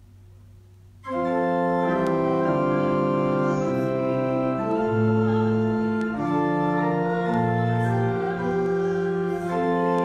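Low hum, then about a second in an organ starts playing slow, held chords over a bass line: offertory music during the collection.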